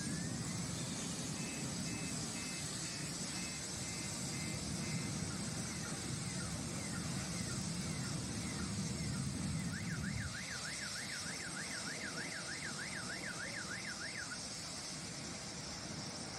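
Car alarm cycling through its tones: a rising whoop, a run of short beeps, a series of falling sweeps, then a fast warble about four times a second. Under it a low rumble runs for the first ten seconds or so.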